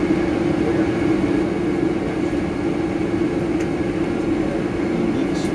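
Steady cabin noise inside a Boeing 767-300ER as it taxis, a constant low hum under an even rush of engine and air noise.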